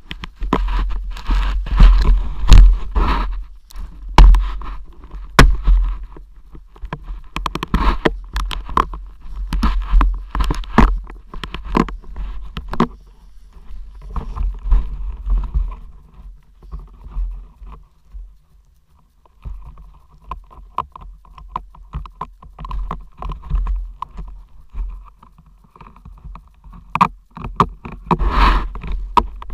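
Deep powder snow spraying and hissing over a low-mounted action camera as it ploughs through snow. The spray is mixed with a heavy low rumble on the microphone and many sharp ticks of snow striking the housing. It eases off around the middle and surges again near the end.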